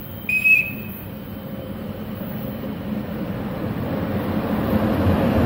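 ÖBB Taurus electric locomotive hauling a Nightjet sleeper train into the station, its rumble growing steadily louder as it comes closer. A brief high toot sounds about half a second in.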